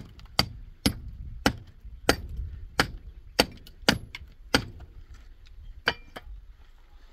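Hand hammer striking masonry: about eleven sharp, clinking blows, roughly one every half-second, with a short pause before the last two.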